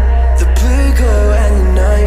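Music: a song with a heavy, sustained bass under a gliding melody line.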